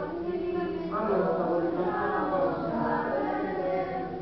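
Several voices singing a song together in held, sustained notes.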